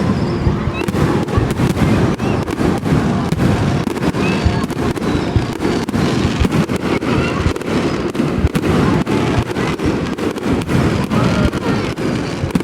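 Fireworks display: many bursts going off in quick succession, low booms overlapping with sharp cracks.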